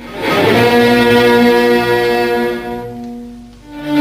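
Orchestral music led by bowed strings: sustained chords swell in, fade away about three and a half seconds in, then a louder new chord comes in near the end.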